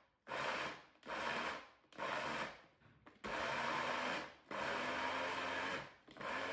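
Girmi electric mini chopper run in pulses, its blades grinding walnuts and garlic cloves: six bursts, the first three short and the later three longer.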